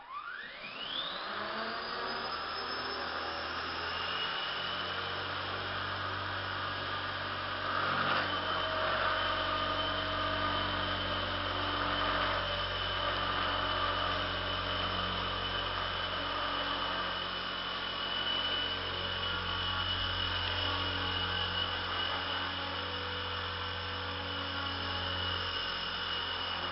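Exceed RC G2 radio-controlled helicopter spooling up: its motor whine rises steeply over the first two seconds. It then runs at a steady speed, a high whine over the hum of the rotor blades, getting a little louder after about eight seconds.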